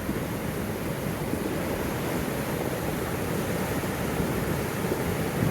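Floodwater rushing through a desert arroyo, a steady, unbroken rush of water.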